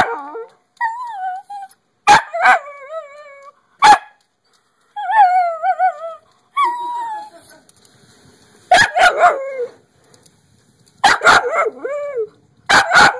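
A pet dog at a window whining in wavering, high cries, broken by sharp barks that come mostly in pairs, excited by a squirrel outside.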